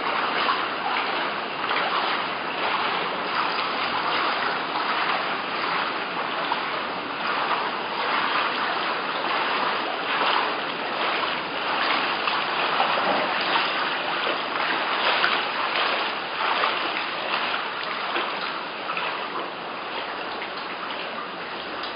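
Floodwater splashing and sloshing steadily as people wade through ankle-deep water in a flooded house, with uneven surges in the splashing. It gets a little quieter near the end.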